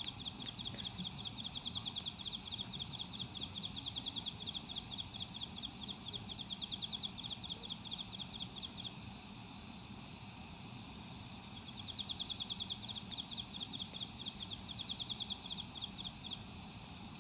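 An insect trilling: a high, rapid pulsed trill held for long runs, breaking off for about three seconds midway and then resuming, over a steady outdoor background hum.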